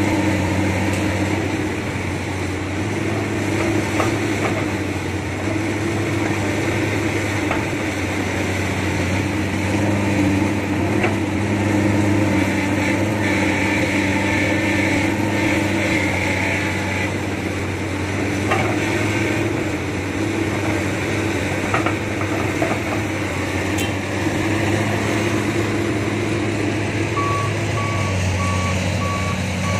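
Diesel engines of an excavator and dump trucks running steadily, with a few scattered knocks. Near the end a truck's reversing beeper starts, a steady string of evenly spaced beeps.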